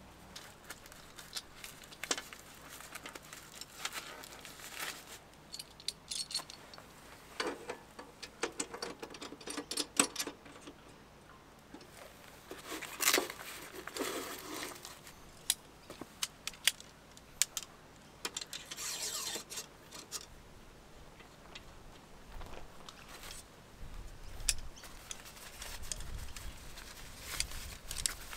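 Irregular metallic clinks, rattles and rustles of things being handled, in scattered clusters.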